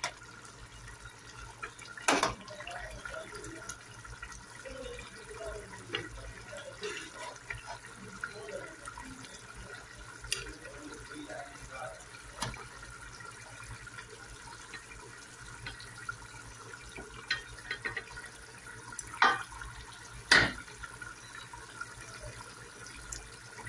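Serving spoon clinking against the cooking pot and plate as wet aloo keema curry is ladled out: a few sharp knocks, the loudest two close together near the end, over a steady hiss.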